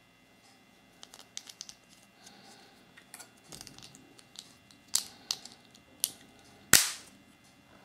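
Small plastic toy parts clicking and tapping in the hands as a Kinder Surprise capsule toy is fitted together. Scattered light clicks, then a louder sharp click near the end.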